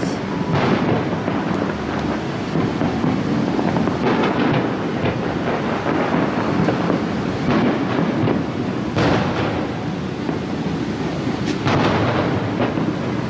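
Fireworks bursting in a steady barrage: continuous booming and crackling, with several sharper bangs standing out, about five in all.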